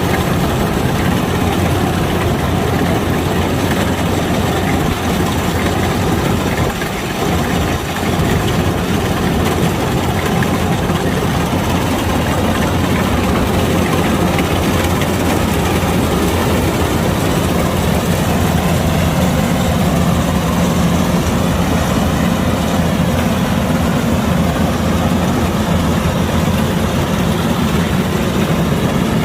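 Kubota DC-105X combine harvester's diesel engine running steadily, with a brief dip about seven seconds in.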